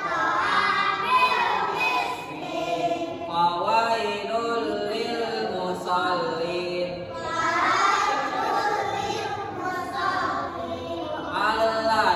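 A group of children's voices chanting together in unison, continuous and fairly loud, with the rise and fall of a sung recitation or class song.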